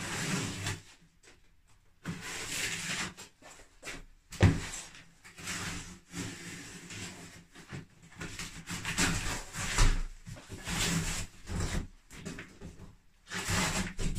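A large cardboard box and its packaging being opened and handled: irregular bursts of rustling, scraping and rubbing, with one sharp knock about four seconds in.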